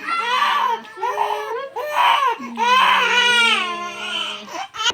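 Baby crying hard while being massaged: several long cries broken by short catches of breath, the last one the longest.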